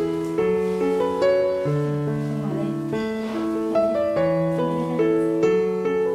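Background piano music: a simple melody of held notes over a bass line, the notes changing every half second or so.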